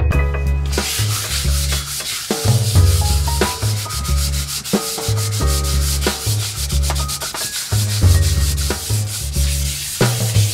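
A wood-veneer cabinet door being sanded by hand with a sanding block, a continuous scratchy rubbing that starts about a second in.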